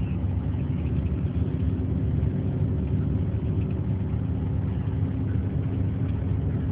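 Steady low engine and road rumble of a moving motor vehicle, heard from inside the cabin.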